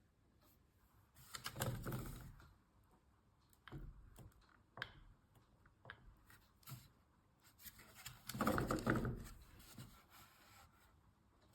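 Handling noises: scattered light clicks and taps, with two longer rustling, clattering bursts, one about a second in and one near eight seconds.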